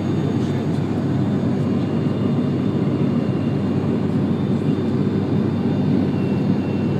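Steady drone of an airliner's engines and rushing air, heard from inside the passenger cabin.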